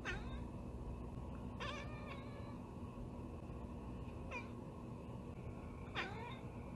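Long-haired black cat chattering, the excited call cats make on spotting a bird or insect they can't reach. Four short chirping calls, most falling sharply in pitch: one at the start, then about 1.7, 4.4 and 6 seconds in.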